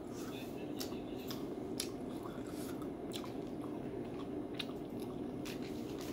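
Chewing a crunchy packaged duck foot, with irregular short crunching clicks as cartilage and small bones break between the teeth.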